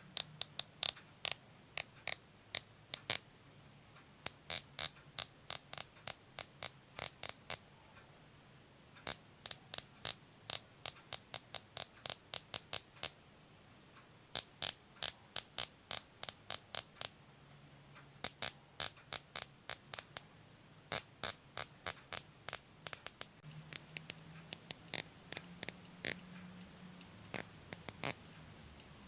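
Plastic cable tie (zip tie) being pulled through its ratchet head, its teeth clicking past the pawl in runs of sharp clicks, about four a second. The runs come in repeated bursts of a few seconds with short pauses between.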